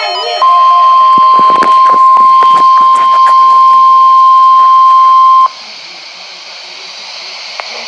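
NOAA Weather Radio warning alarm tone: a single loud, steady 1050 Hz tone held for about five seconds, sent as a weekly test of the receivers' alert. It cuts off sharply, leaving the radio's hiss.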